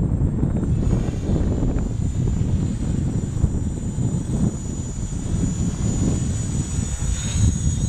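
Scarab MultiWii quadcopter flying overhead: its electric motors and propellers give a thin, steady high whine that strengthens about a second in. Under it is a heavy low rumble of wind on the microphone.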